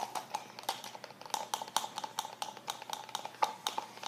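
Stir stick clicking and scraping against the inside of a thin plastic cup while two-part liquid foam is mixed, a rapid run of light ticks several times a second.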